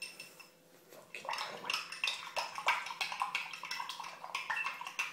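Metal spoon stirring a spice-and-vinegar mixture in a drinking glass, clinking quickly and irregularly against the glass from about a second in.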